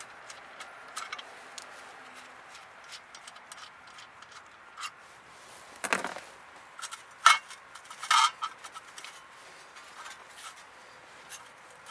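Loose metal bolts and hand tools being handled and set down: scattered small clicks and scrapes, with a few louder metallic clanks about six to eight seconds in.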